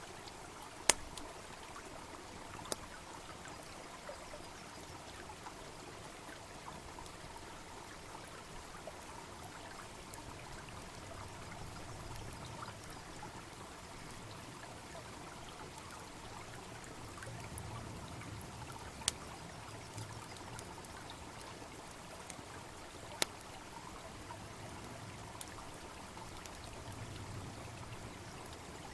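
Steady babbling of a small stream, with a wood bonfire crackling and giving a few sharp, scattered pops.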